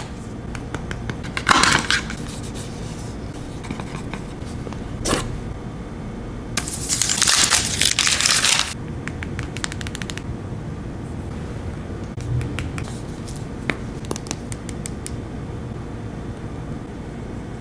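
Unboxing handling noise: a brief scrape about a second and a half in, then a louder crinkling rustle lasting about two seconds as the protective wrap is slid off a foldable phone. Scattered light clicks and taps follow as the phone is handled.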